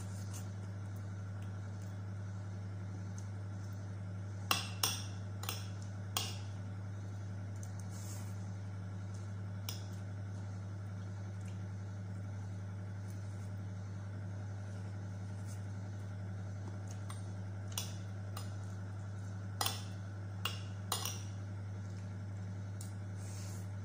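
A metal spoon clinking against a ceramic plate as rice and chicken are scooped up: a few sharp clinks in a cluster about five seconds in and another around twenty seconds in, with single ones between. A steady low hum runs underneath.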